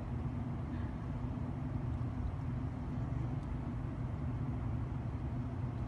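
Steady low outdoor rumble with a faint hum, with no distinct splashes or calls standing out.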